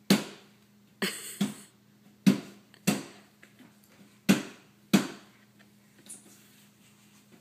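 A kitchen cabinet door knocking repeatedly against a rice cooker that blocks it from closing: about seven sharp knocks, irregularly spaced over about five seconds, with a brief rattle about a second in.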